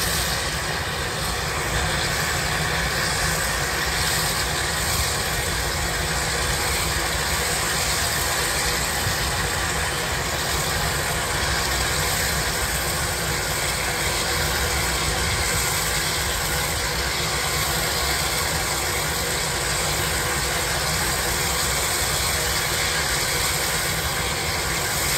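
Steam shovel's steam engine working hard, a steady mechanical rushing noise that does not let up, while it throws sparks from its stack.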